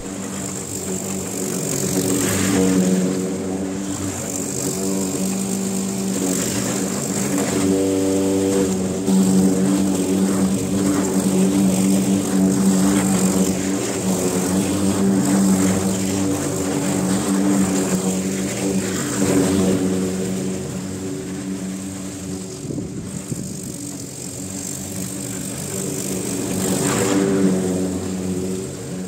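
Petrol walk-behind rotary lawn mower engine running steadily while mowing grass. It swells louder and eases off several times as the mower moves about the yard.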